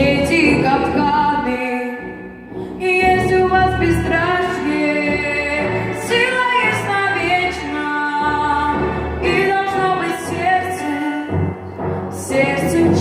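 A female singer singing a slow song over backing music, holding long notes with vibrato.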